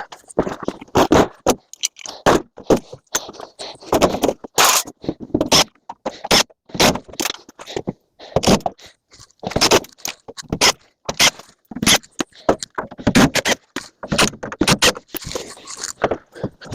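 Scrap metal being handled: a dense, irregular run of clanks, rattles and scrapes as metal pieces are moved and dropped against each other.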